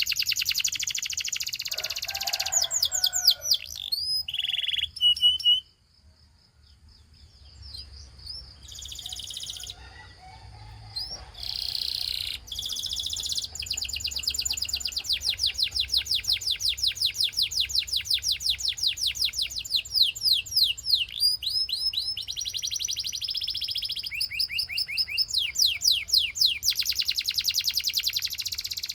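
Gloster canary singing: fast rolling trills of rapidly repeated high notes, with a long held whistle a few seconds in and a brief pause about six seconds in before the trills resume.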